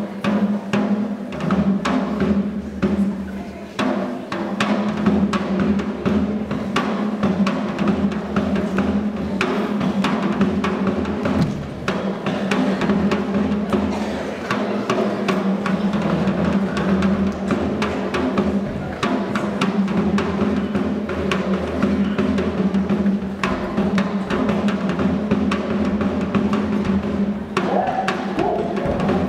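Music led by fast, dense drumming, with a steady low tone held beneath it.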